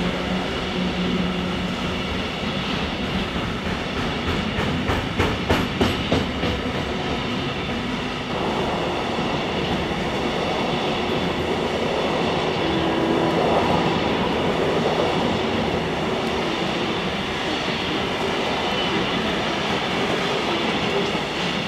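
Container freight train's wagons rolling past at steady speed, with a continuous rumble of wheels on rail. A run of sharp clacks from the wheels comes about four to six seconds in.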